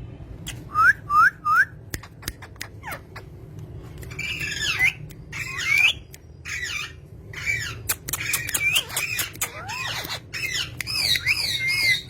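Parrots squawking and chirping: three quick rising whistled chirps about a second in, then a busy run of harsh squawks, sharp clicks and chatter.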